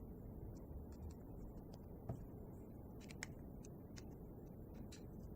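Faint, scattered light clicks and taps of small metal engine parts and hand tools being handled during reassembly of a tiny model diesel engine, over a low steady background hum.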